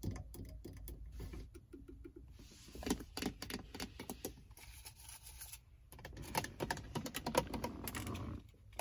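Long fingernails tapping and scratching on a Ford Mustang's interior trim, the leather-wrapped handbrake lever and the plastic center console: quick runs of light clicks at the start and again in the last few seconds, with softer scratching between.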